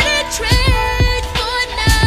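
Background music: an R&B-style song with a sung melody over a steady beat.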